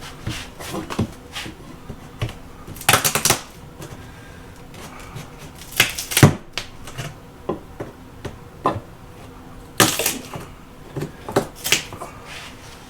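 Wood paneling and trim strips being pried and pulled off a wall: irregular knocks, cracks and scrapes, with a few louder cracks spread through.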